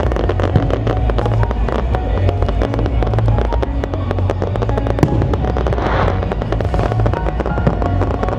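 Fireworks display going off: a dense run of quick pops and crackles over deep booms.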